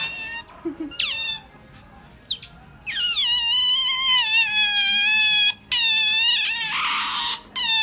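Otters squealing: a few short, high chirps that drop in pitch near the start, then after a lull long, high-pitched drawn-out squeals from about three seconds in, one of them turning to a raspy hiss near the end.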